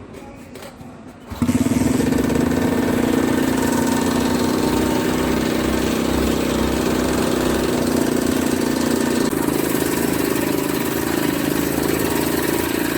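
Old motorcycle engine running steadily, driving the washer's water pump. It comes in suddenly about a second and a half in.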